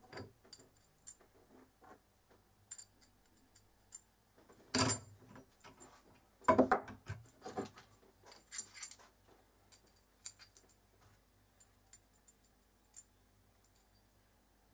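Small metal parts and hand tools being handled on a workbench: light clinks and clicks throughout, with louder clattering about five seconds in and again around seven seconds, the loudest.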